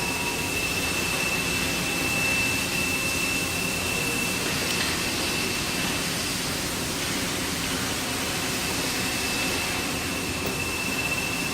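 Steady machine noise in a welding workshop: an even rushing hiss with a thin high whine that drops out midway and comes back near the end.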